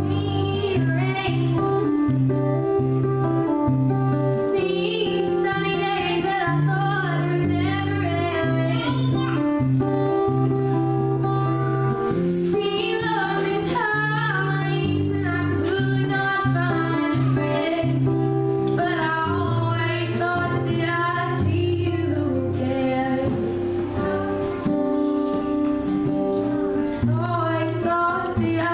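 A woman singing into a microphone, accompanied by an acoustic guitar.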